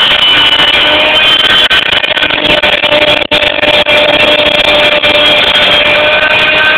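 CNC mill cutting 2.5 mm ABS plastic sheet: loud, steady cutting and spindle noise with several whining motor tones that shift in pitch as the machine moves, and a brief dip a little past halfway.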